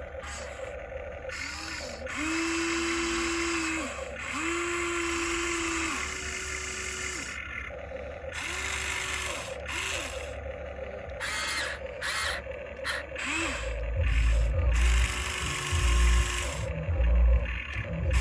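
Electric motors and plastic gearboxes of a Huina 1594 RC excavator whirring in short bursts, each rising in pitch as it starts and dropping as it stops. Heavy low thumps and rumbling join in toward the end.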